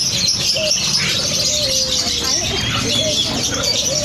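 Many caged songbirds chirping together in a dense, continuous chatter, with a low cooing call that falls in pitch and repeats about every two seconds.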